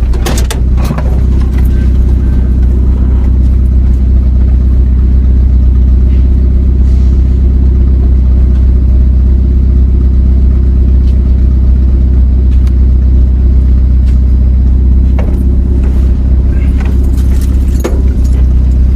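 Vehicle engine and road noise heard from inside the cab while driving: a steady low drone with a few light rattles and clicks.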